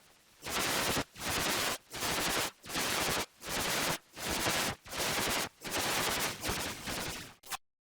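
A rhythmic series of harsh, crackling noise bursts that sound like machine-gun fire, about nine in a row, roughly one every three-quarters of a second. It is a heavily distorted, edited sound effect, and it cuts off abruptly near the end.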